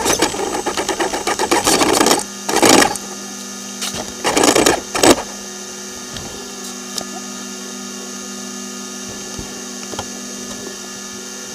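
Traxxas Rustler RC truck's brushless electric motor and drivetrain whirring in short, rapid bursts for about the first five seconds. After that only a steady hum remains.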